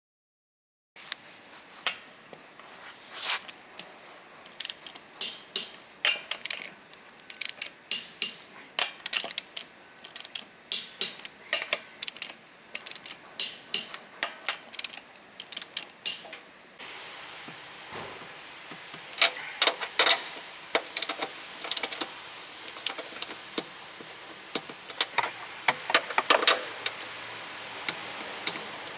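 Irregular sharp clicks and rattles, sometimes several a second, from a Toyota Esquire minivan being driven: the abnormal driving noise that the owner links to the shock absorbers. About two-thirds of the way in, the steady background noise steps up and the clicking carries on over it.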